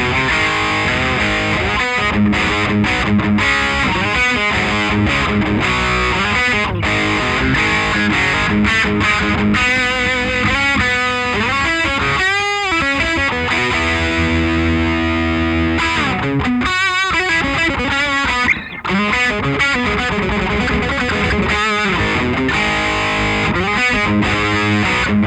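Electric guitar played through a late-1980s Marshall The Guv'nor overdrive pedal, giving a gritty, distorted tone. It plays continuous riffs, with wavering bent or vibrato notes and a chord held for a couple of seconds about halfway through.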